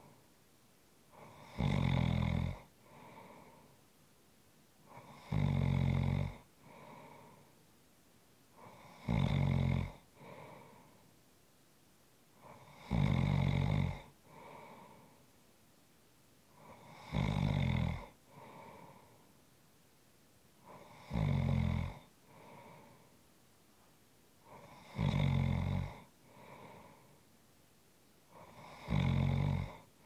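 A person snoring in a steady rhythm: a loud snore lasting about a second comes roughly every four seconds, each followed by a fainter sound about a second later.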